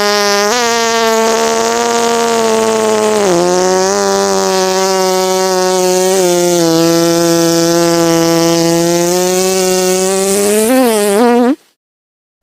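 One long, drawn-out fart sound effect: a loud steady buzz that drops slightly in pitch about three seconds in, wobbles up and down near the end, and cuts off suddenly.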